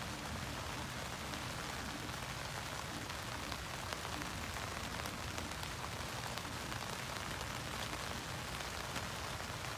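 Steady rain pattering on a Luxe Twinpeak tent's fabric, heard from inside the tent, with faint ticks of single drops scattered through it.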